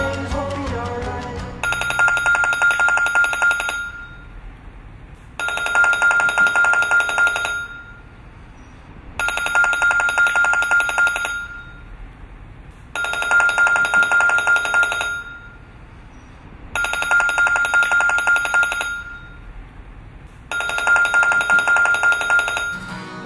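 Telephone ringing unanswered: six rings, each about two seconds of fast trilling, with short pauses between them, starting after music fades in the first second or so.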